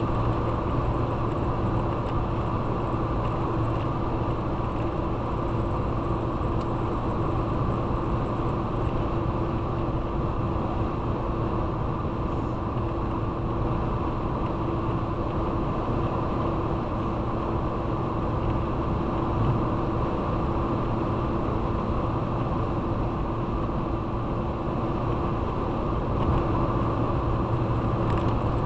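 Steady engine and tyre noise of a road vehicle driving at an even speed: a constant drone with a low hum and no changes in pace.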